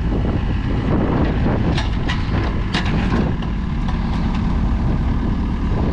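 JCB 8056 midi excavator's diesel engine running steadily, with a few short sharp knocks about two and three seconds in.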